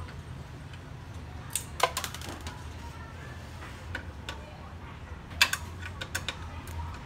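A metal screwdriver clicking and clinking against the plastic frame of a partly disassembled HP LaserJet Pro MFP M227fdw laser printer. The clicks come in two bursts, about a second and a half in and again about five and a half seconds in, over a steady low hum.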